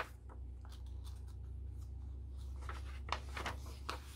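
Pages of a handmade junk journal, paper and canvas cloth, being handled and turned: soft rustles and a few light taps, most of them in the second half, over a low steady hum.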